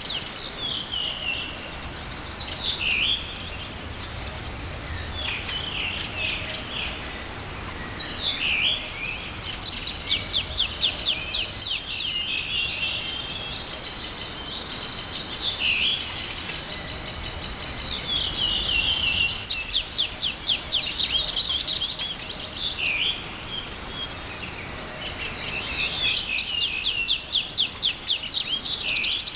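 Songbirds singing in a spring forest. One bird repeats a fast, dry trill of rapid notes lasting about two to three seconds, three times. Other birds add shorter chirps and down-slurred calls between the trills.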